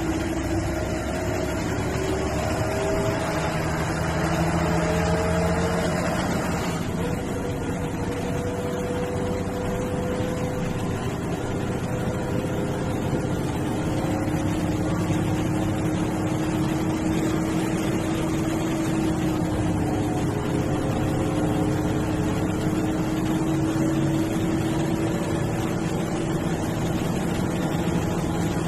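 Diesel engine of an MSRTC bus running under load, heard from inside the bus. Its pitch climbs for the first six seconds, then falls back and changes character about seven seconds in before running on steadily.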